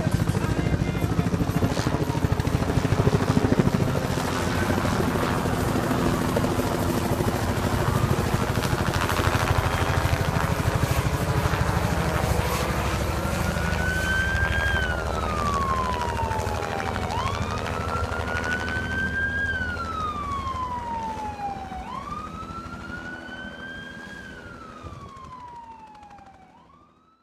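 LifeTeam air-ambulance helicopter flying overhead with steady rotor and engine noise. A siren wails alongside it in repeated sweeps, each a quick rise then a slower fall, about every four to five seconds, growing clearer in the second half. The sound fades out near the end.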